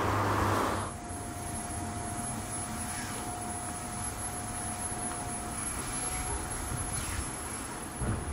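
A passing car's road noise, cut off abruptly less than a second in, then quieter steady outdoor background with a faint steady whine.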